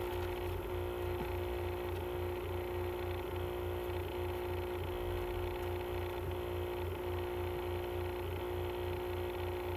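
Steady electrical hum with a low throb pulsing at a regular rate and no other clear event.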